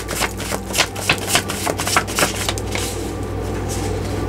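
A deck of tarot cards being shuffled by hand: a quick run of soft card flicks and slaps that thins out about three seconds in.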